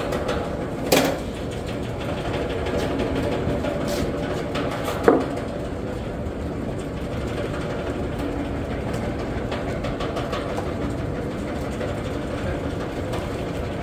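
A machine running with a steady drone throughout, with a light knock about a second in and a sharper one about five seconds in.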